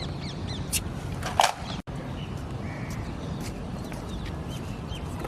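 Birds chirping repeatedly over a steady low background rumble, with a sharp knock about a second and a half in.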